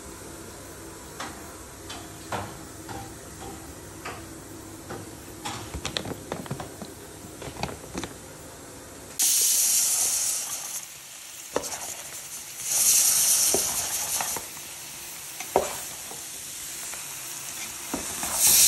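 Red-marinated meat sizzling in hot oil in a pot on a gas stove while a metal ladle stirs it. The sizzle starts suddenly about halfway through and swells again twice. Before that there are only light clinks and knocks of kitchen handling.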